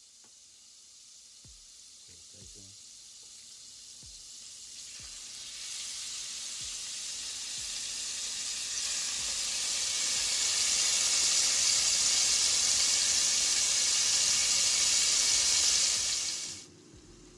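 Steaks searing in hot melted butter in a pan: a faint sizzle that swells about five seconds in into a loud, steady sizzle as the raw meat goes into the fat, then cuts off abruptly near the end. A few faint knocks come at the start.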